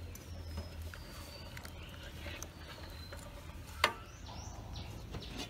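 Outdoor ambience of birds chirping over a steady low hum, with one sharp knock a little before four seconds in.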